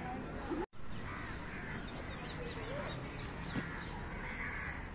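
Crows cawing with small birds chirping, over steady background noise. The sound cuts out completely for an instant just under a second in.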